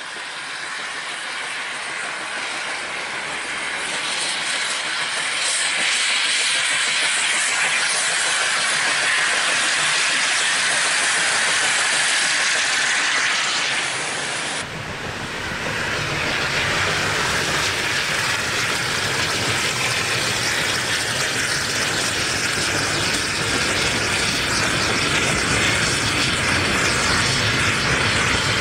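1861 Robert Stephenson & Co. steam locomotive working its train, a steady hiss of steam and running noise that grows louder over the first few seconds as it approaches. After a cut about halfway, a deeper rumble of the wooden carriages rolling past on the rails joins the steam.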